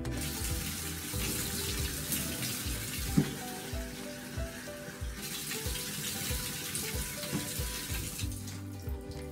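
Water running into a bathtub as a wet dog is washed and rinsed: a steady hiss of water that eases off near the end.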